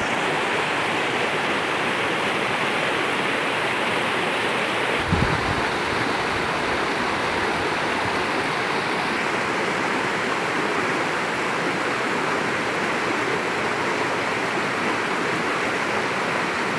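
Fast-flowing rocky stream rushing over boulders: a steady, full rush of water. A brief low thump comes about five seconds in.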